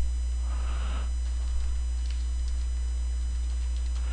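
Steady low electrical mains hum with faint steady high-pitched tones, and a few faint clicks of keyboard typing.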